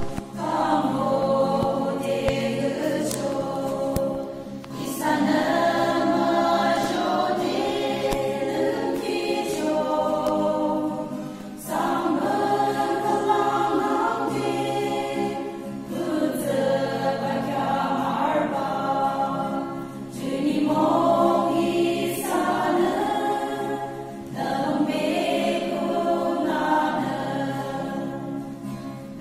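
A women's choir singing a hymn together, in phrases of a few seconds with brief breaks for breath between them.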